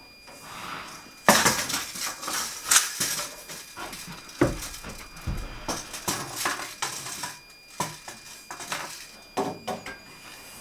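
Irregular clattering, clinks and knocks of hand tools and building materials being handled, starting about a second in, with a couple of heavier thumps midway.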